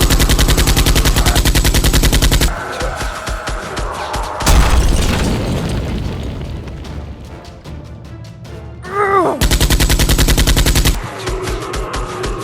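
Rapid automatic-gunfire sound effects, one long burst of quick evenly spaced shots for the first two and a half seconds and a second burst about nine and a half seconds in, over background music.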